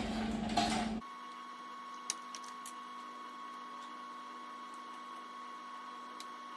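A few light clicks and taps of hands unhooking the throttle cable from the throttle body in an engine bay, over a steady low hum. In the first second a louder noise that cuts off abruptly.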